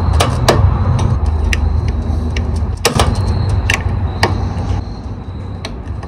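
Plastic wire-harness plugs in a microwave clicking and scraping at irregular intervals as fingers wiggle them loose, over a loud low rumble that eases a little near the end.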